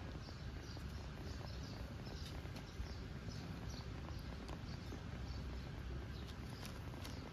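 Outdoor ambience: faint, high chirps repeating every half second or so over a steady low rumble, with a few soft clicks.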